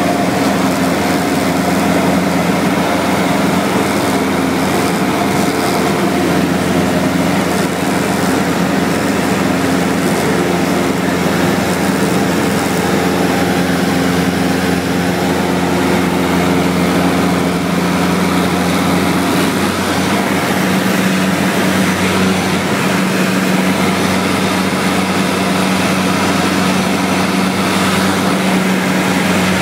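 Cessna 172SP's four-cylinder Lycoming engine and propeller droning steadily in cruise flight, heard from inside the cabin.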